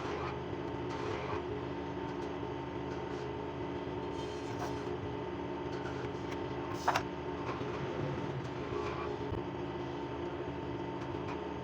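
Woodworking power tool's electric motor running steadily with a constant hum, and a few light clicks, one sharper knock about seven seconds in.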